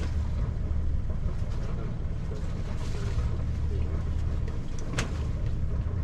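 A sailing yacht's engine running steadily at low revs under motor, a low rumble. Two sharp clicks come about five seconds apart.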